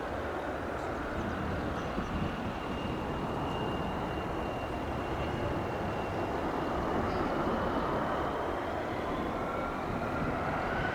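Jet airliner engines running: a steady rumble with a faint high whine, and a second whine rising near the end.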